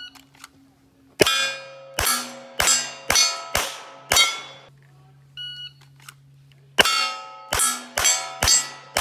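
Pistol firing two quick strings of shots at steel plates, each shot followed by the ring of a struck plate: six shots, then after a short electronic beep about five seconds in, five more.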